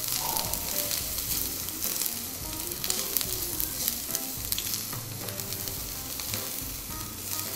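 Diced vegetables (onion, carrot, zucchini, pepper) sizzling in oil in a very hot wide frying pan, with the scrape and clatter of a spatula stirring them against the pan.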